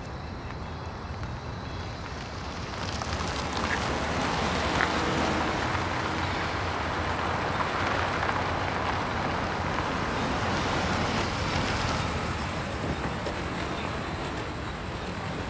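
Mazda 2 sedan driving up and coming to a stop: engine and tyre noise that swells a few seconds in and eases off near the end.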